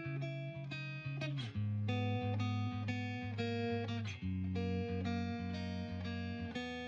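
Background music led by a plucked guitar, with chords that change about every half second to second.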